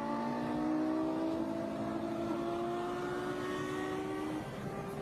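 A car engine accelerating hard at speed, its note climbing slowly and steadily for about four seconds before it drops away near the end, over a steady rushing noise.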